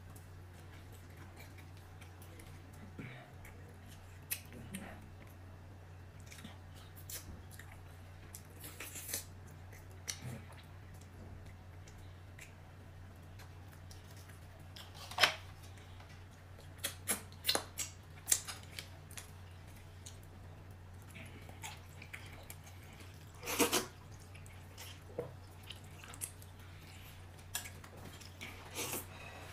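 Eating at a table: scattered light clicks and taps of utensils against bowls, with chewing, over a steady low hum. The clicks come more often and louder in the second half.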